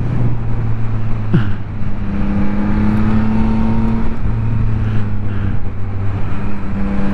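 Yamaha MT-09's inline three-cylinder engine running under way at a mostly steady pitch, with a brief drop in pitch about a second and a half in and a shift in its note around four seconds in.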